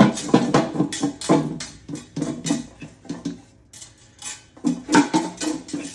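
Garlic cloves rattling hard inside bowls being shaken to loosen their skins, a fast clatter in two bouts with a short pause between.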